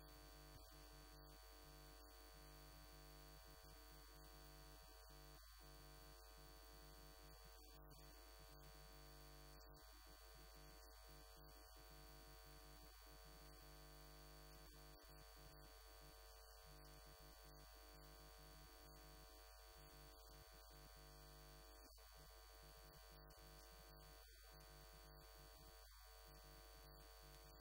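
Near silence: a faint, steady electrical hum and hiss with a thin high whine.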